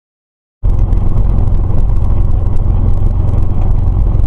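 Silent for the first half second, then a steady, loud rumble of a car's engine and tyres on the road, heard from inside the moving car through a dashcam microphone.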